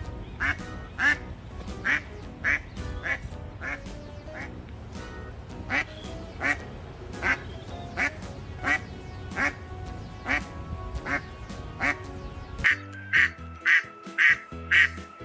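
Ducks quacking in a steady series of short, sharp quacks, about one or two a second, over background music. Near the end the music changes and the quacks come quicker and louder.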